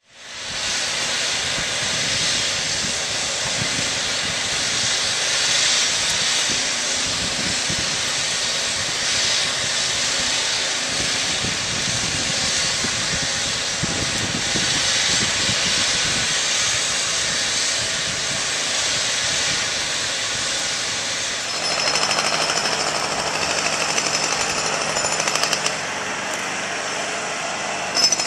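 Road-works machinery making a loud, steady mechanical din. About 22 seconds in it changes to a rapid, regular hammering with a steady hum under it.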